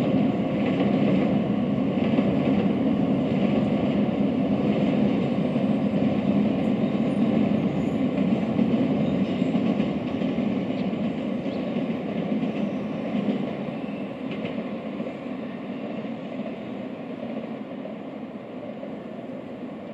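A Shinkansen train running on the elevated tracks, a steady rolling noise that fades gradually over the last several seconds as it moves away.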